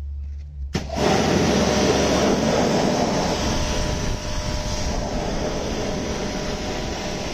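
Pressure washer jet spraying a steel wheel and tyre, rinsing off pink wheel-cleaner foam: a steady loud hiss of water that starts suddenly about a second in, over a low hum.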